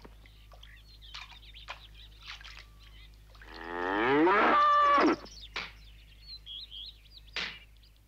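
A cow mooing once: one long moo of about a second and a half that rises in pitch, midway through. Faint scattered clicks and rustles sound around it.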